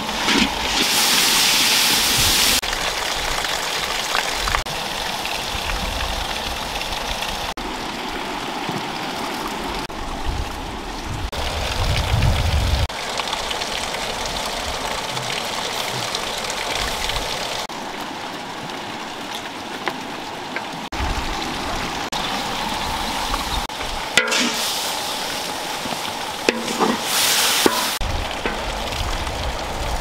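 Meat sizzling as it is stirred with a wooden spatula in a large iron wok, a steady rushing hiss that changes every few seconds, with a few sharp knocks later on.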